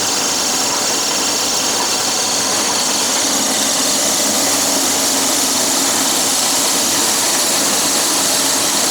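Dog food extruder machine running steadily: a loud, even mechanical noise with a lot of hiss and no change in pace.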